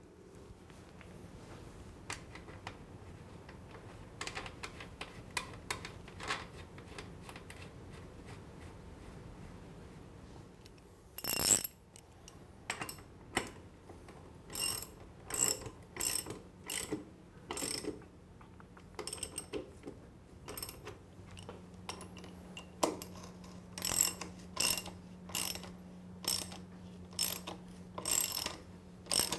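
Socket ratchet wrench clicking as bolts on a motorcycle's rear axle area are tightened: short runs of rapid clicks, one per back-stroke of the handle, repeating through the second half. A single louder metallic clank about eleven seconds in, and a faint steady low hum underneath.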